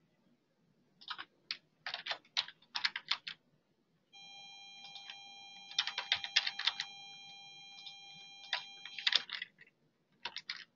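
Computer keyboard typing in quick bursts of keystrokes. From about four seconds in, a faint steady high whine of several fixed tones runs under the typing for about five seconds, then cuts off.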